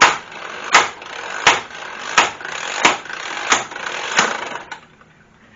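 Wagan Tech 12-volt corded impact wrench hammering on a car's lug nut: its motor whirs steadily, with a sharp impact blow about every 0.7 seconds, seven in all. The wrench stops near the end.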